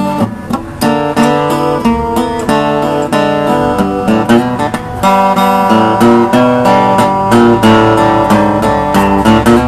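Acoustic guitar strumming steady chords in an instrumental break between sung verses of a country song.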